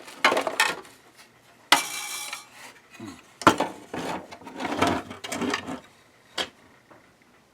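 Small metal parts clicking and clattering against the sewing machine's mechanism as they are handled and fitted by hand, in several irregular bursts, with one last sharp click near the end.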